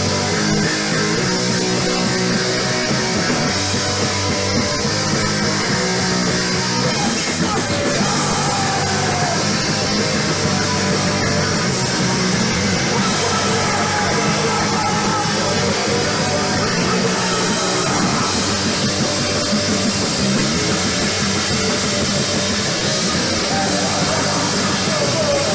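A rock band playing live and loud, with electric guitar and drums.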